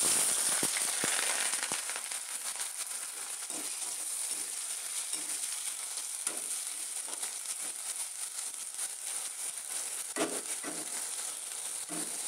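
Chopped onions sizzling as they hit hot oil in a kadai. The sizzle starts suddenly, is loudest at first, then settles into a steady frying hiss. A slotted spoon knocks and scrapes against the pan every second or so as the onions are stirred.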